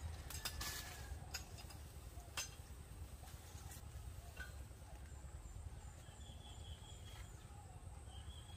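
Scattered crackles and snaps of dry banana leaves being pulled off the plants, most of them in the first few seconds, over a low steady rumble. A faint high chirping call comes in twice in the second half.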